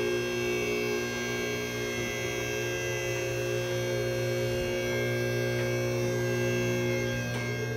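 A steady electrical hum made of several fixed tones, even in level and unchanging throughout.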